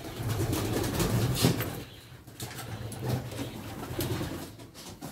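Racing pigeons cooing in a loft, low drawn-out coos in two spells, with a few short light taps among them.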